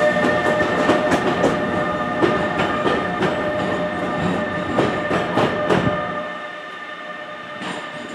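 A New Jersey Transit electric train pulling away, its wheels clacking irregularly over rail joints under a steady electric whine and rumble. It fades as the train recedes, and the low rumble drops away about six seconds in.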